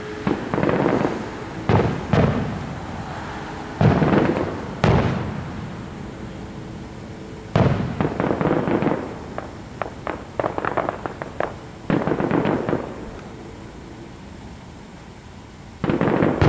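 Aerial fireworks shells bursting: a string of sharp booms every second or two, each trailing off, with a quick run of crackling pops about ten seconds in and one more boom near the end.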